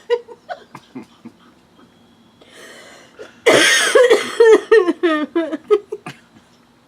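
A person's voice breaks out in a sudden loud burst about three and a half seconds in, followed by about two seconds of short, repeated laughing pulses.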